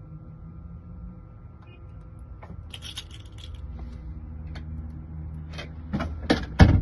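Small metal clicks and clinks from a lock cylinder and its pins being handled during rekeying, over a faint steady hum. A few scattered clicks come about halfway through, and a run of louder knocks near the end.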